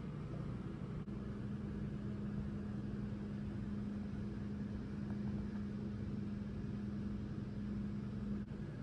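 A steady low mechanical hum with a constant low tone, starting about a second in and stopping just before the end.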